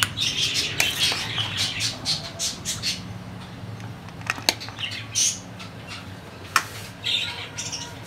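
Budgerigars chattering and squawking, busiest in the first few seconds, with a spoon clinking and scraping against a steel bowl while soft food is served out. Two sharp clinks stand out, about four and a half and six and a half seconds in.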